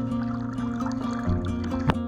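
Background music of sustained notes over a bass line, with the bass note changing partway through. A sharp click sounds near the end.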